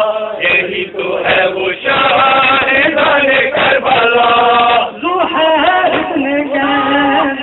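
Noha, a Muharram lament for the martyrs of Karbala, chanted by male voices. The sung lines have long held notes that step and glide in pitch.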